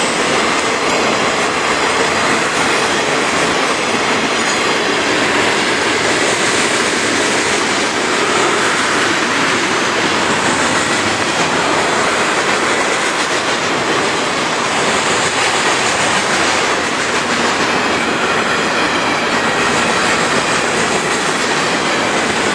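Freight train cars rolling past close by, a loud, steady noise of wheels running on the rails.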